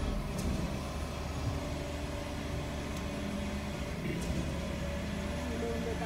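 Idling vehicle engines: a steady low rumble with a steady hum above it, such as a concrete truck and nearby traffic running while held at a flagged crossing.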